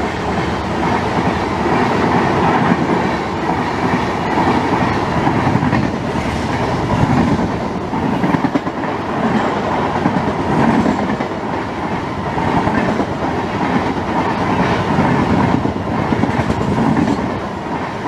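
A passenger train of red coaches running past on the adjacent track at close range: a loud, steady rush of wheels on rail with a clickety-clack that swells and fades about every two seconds as each coach's bogies go by.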